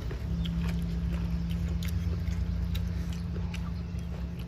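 Chewing and biting sounds of people eating with their hands, as scattered small clicks, over the steady low hum of an engine running.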